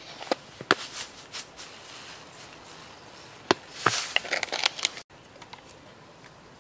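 Light handling noise: scattered sharp clicks and brief crinkly rustles, coming thickest in a cluster around the middle, then breaking off suddenly at a cut.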